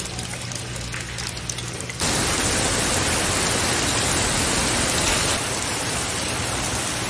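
Trickling water over a low steady hum for about two seconds, then an abrupt change to heavy rain falling steadily on a garden pond and wet stones.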